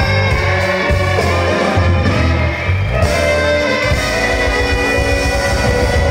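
A live band playing loudly on stage, heard from within the crowd: guitars over a bass line that changes note about every half second.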